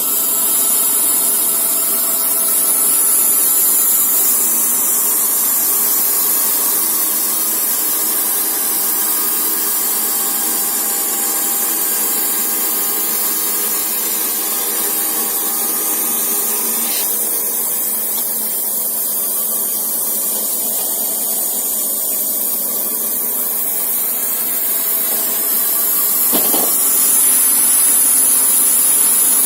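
Wood-Mizer LT40 Super band sawmill running steadily with a loud, even hiss over a faint hum, as of the blade working through wood. A short knock comes near the end.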